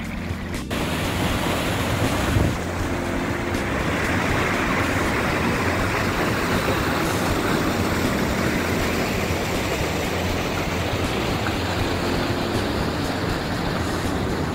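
Steady rush of a mountain stream pouring over rock into a gorge pool, with a low rumble of wind on the microphone. It gets louder just under a second in, and there is a brief bump about two and a half seconds in.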